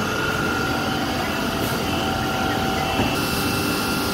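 Steady drone of running machinery, with a few constant whining tones over it and a light knock about three seconds in.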